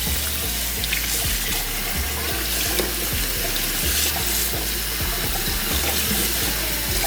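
Kitchen faucet running steadily into the sink, over a background music beat.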